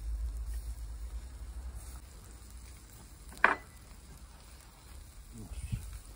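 Lamb liver kebabs sizzling on a charcoal grill, under a low rumble that fades after the first two seconds. One sharp click about halfway through is the loudest sound.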